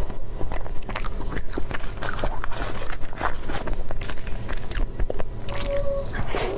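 A person eating close to the microphone: repeated bites and crunchy chewing, with scraping sounds, making a run of quick clicks and crackles.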